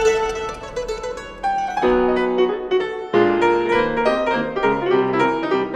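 Instrumental music: sustained chords on piano and plucked strings, with new chords struck about two and three seconds in.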